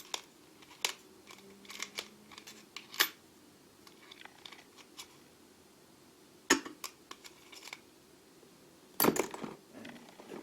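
Hardened steel lathe cutter bits clinking together as they are picked through by hand: scattered sharp clicks, with a brief rattle of several near the end.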